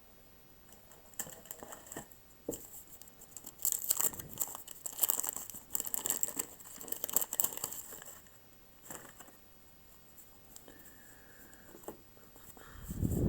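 Wax-paper trading-card pack wrapper crinkling and tearing as it is opened, with cards rustling in the hand: a run of crackly rustles that thins out to a few light clicks after about eight seconds.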